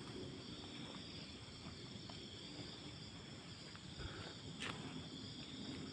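Faint, steady chirring of night insects, with one faint sharp click about four and a half seconds in.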